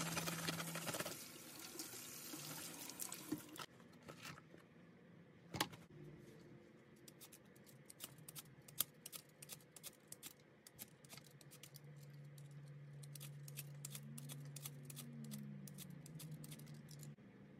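Kitchen tap running over sweet potatoes as they are scrubbed with nubbed rubber potato-peeling gloves, shut off a few seconds in. After a single knock, a handheld vegetable peeler scrapes skin off a sweet potato in many short strokes.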